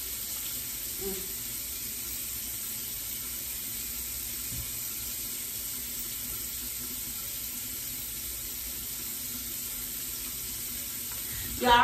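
Bathroom sink tap left running, a steady even rush of water into the basin that stops suddenly near the end.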